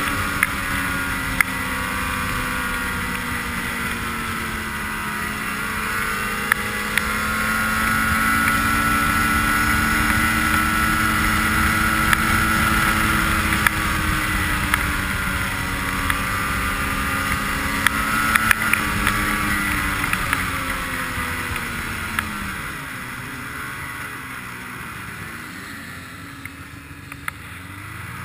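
Ski-Doo snowmobile engine running at speed, its pitch rising and falling with the throttle. About three-quarters of the way through it eases off and gets quieter, then picks up again near the end, with a few sharp clicks along the way.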